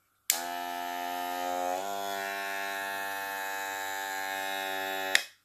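Cordless hair clipper switched on with a click and running with a steady buzz. The pitch steps up slightly about a second and a half in, and it is switched off with a click near the end.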